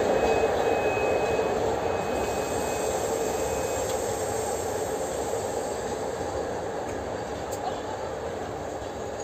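CFR Class 41 electric locomotive and its passenger coaches running along the station track, a steady rolling rumble fading as the train moves away. A thin high squeal sounds on and off through the first four seconds.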